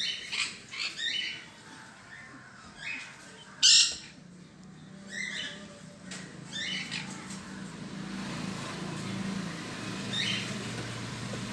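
Small pet parrots in an aviary squawking in short, shrill calls scattered through the stretch, the loudest a sharp squawk just under four seconds in. A faint low hum runs under the later part.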